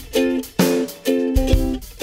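Intro music: strummed acoustic chords on a guitar-like plucked-string instrument, about two strums a second, with a low drum thump near the end.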